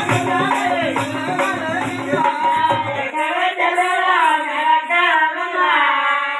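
Folk-theatre accompaniment: hand drums beating under singing. About three seconds in the drums stop and a singer carries on alone in long, wavering held notes.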